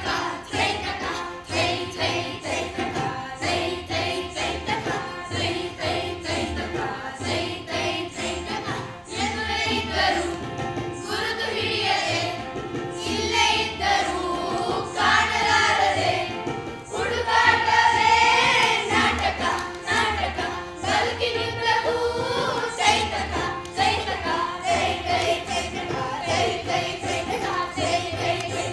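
Song with a steady drum beat: a chorus of voices singing together over rhythmic percussion.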